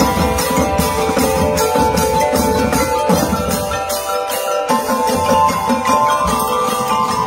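A drum and lyre band playing live: marimbas and xylophones carrying sustained, rolled melody notes over snare drums, bass drums and a drum kit. The low drums drop back briefly a little past the middle, then come in again.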